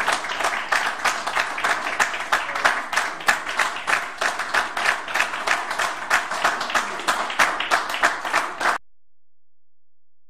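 Audience applauding, a dense patter of many hands clapping, which stops abruptly near the end.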